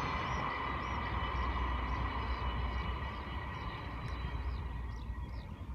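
A train of 24-series sleeper coaches rolling past and fading away, its rumble and steady hum dying down. Over it, a bird chirps about two to three times a second from a couple of seconds in.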